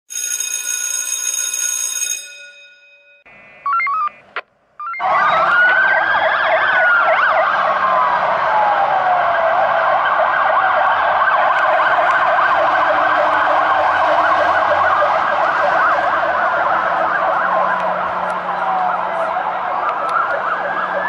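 Fire engine sirens: a slow wail rising and falling over several seconds, layered over a faster warbling siren, starting about five seconds in. A steady electronic tone sounds for the first two seconds.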